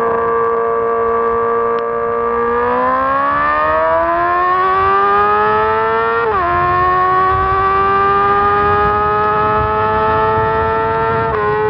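Honda CBR600RR's inline-four engine at high revs, holding a steady high-pitched note and then accelerating with rising pitch. It shifts up about six seconds in with a sudden drop in pitch, pulls on with a slowly rising note, and dips briefly again near the end.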